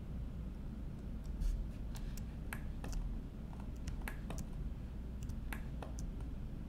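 A dozen or so short, sharp clicks at irregular intervals from a computer mouse and keyboard, over a steady low hum.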